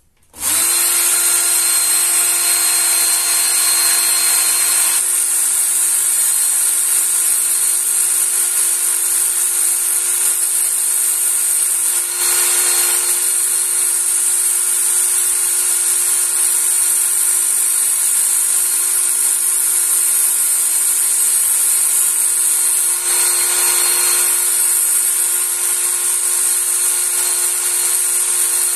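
Work Sharp electric belt knife sharpener switched on about half a second in and running steadily on its coarse grit-120 belt, a steel knife edge drawn against the belt through the angle guide to regrind the bevel to 16 degrees. The sound is a loud, even motor-and-belt hiss with slight changes near 5, 12 and 23 seconds.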